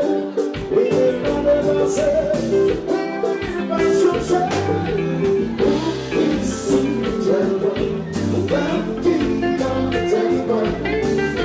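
Live kompa band playing: a male lead vocalist singing over guitar and a steady drum beat.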